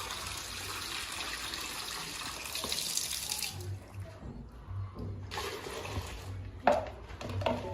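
Water poured from a one-litre jug into a bucket of soap mixture. It pours steadily, stops about three and a half seconds in, pours again briefly, then a sharp knock comes near the end, followed by a few lighter clicks.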